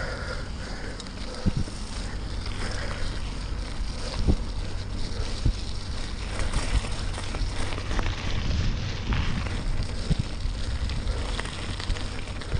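Bicycle tyres rolling over wet gravel, with wind buffeting the microphone and a few sharp knocks as the bike jolts over bumps.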